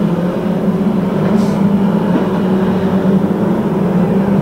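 A pack of saloon stock cars racing, their engines blending into a steady loud drone.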